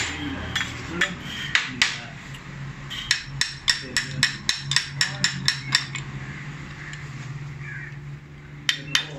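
Light hammer taps on metal: a few scattered taps, then a quick run of about a dozen at roughly four a second, then three more near the end. A steady low hum runs underneath.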